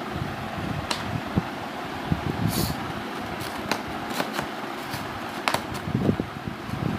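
Jaggery-coated fried snack pieces being pushed around by hand on a plastic plate, giving scattered light clicks and rattles as they knock together. A brief rustle comes about two and a half seconds in. A steady fan-like hum runs underneath.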